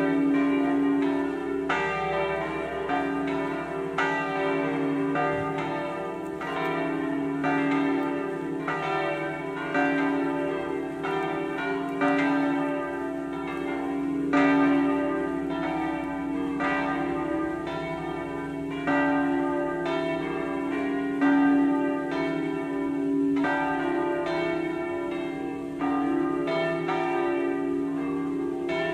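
Church tower bells cast by De Poli, swinging with flying clappers, ring all together as a continuous full peal of many overlapping strikes, each one ringing on into the next. This is the distesa of the seven smaller bells, from Re3 up to Do4, ringing the call to Solemn Mass.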